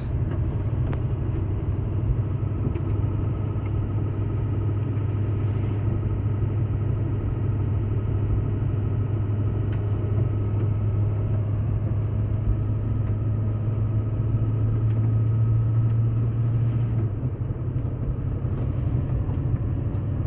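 Steady in-cab drive noise from a moving road vehicle: a continuous low engine drone with tyre and road noise, the drone easing off about three quarters of the way through.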